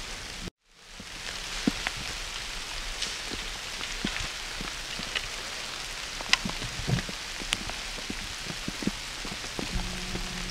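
Steady rain, an even hiss with scattered drops ticking sharply here and there. The sound cuts out completely for a moment about half a second in.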